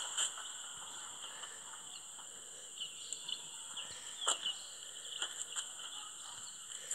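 Outdoor ambience: a steady high-pitched insect buzz with short bird chirps over it, and a few soft clicks.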